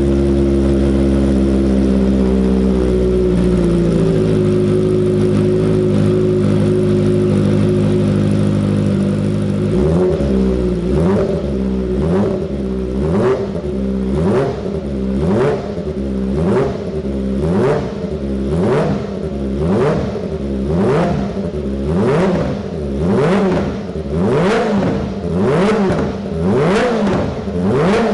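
Kawasaki Ninja ZX-25R's 250cc inline-four engine idling steadily, then revved up and down over and over, about one quick rev a second.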